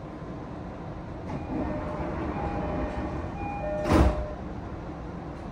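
Sotetsu 10000 series train's passenger sliding door closing, with a few short steady tones while it moves, then the door panels shutting with a loud thump about four seconds in, over the train's steady low hum.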